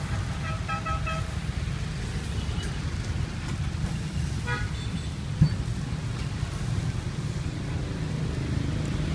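Busy street traffic: a steady low rumble with short horn toots, a quick series of beeps about half a second in and another toot about four and a half seconds in, and a single sharp knock about five and a half seconds in.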